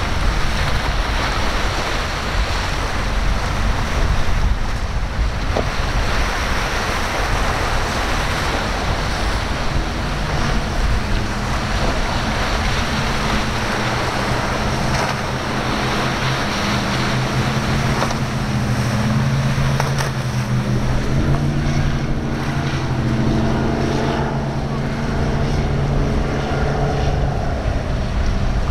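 Wind buffeting the microphone over breaking waves and surf, with a Donzi powerboat's engine droning steadily underneath from about a third of the way in.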